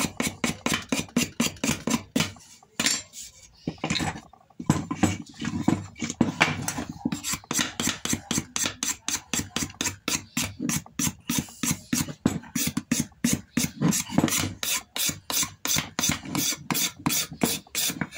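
Metal hand scraper scraping down the imbuia-wood stock of a Winchester rifle in quick strokes, about four a second, stripping the old surface to bare wood. The strokes break off briefly twice, about two and a half and four seconds in.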